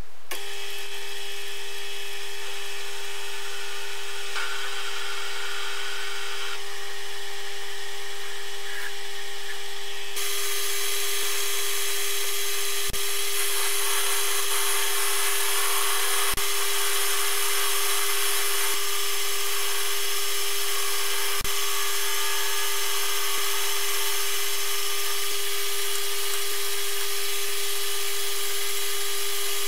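Metal lathe switching on and running, its motor and drive giving a steady whine as the spindle turns a small steel part in a three-jaw chuck. From about a third of the way in, a louder hiss joins the whine, with a few sharp clicks, as the part is worked.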